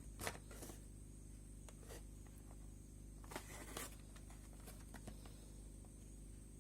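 Toy packaging being handled: short bursts of rustling and scraping, a cluster just after the start and another about three and a half seconds in, with a few small clicks between, over a steady low electrical hum.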